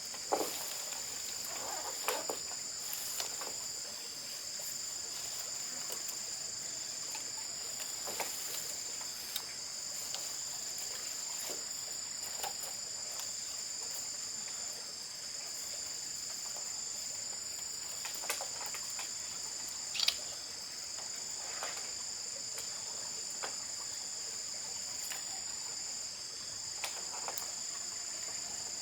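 Steady insect chorus, a continuous high-pitched shrill drone at two pitches, with a few short sharp clicks or knocks scattered through it; the loudest knock comes about twenty seconds in.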